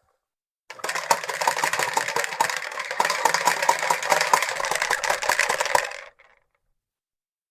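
Fisher-Price Corn Popper push toy rolling, its plastic balls popping against the dome in a fast, continuous clattering rattle. It starts about a second in and stops about five seconds later.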